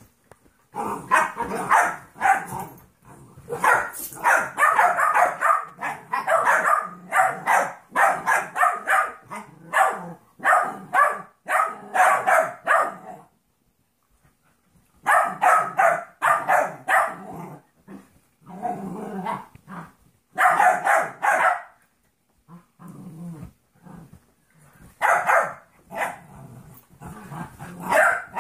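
Dogs barking and growling while they play-fight, in quick runs of short barks and snarls with a pause about halfway through.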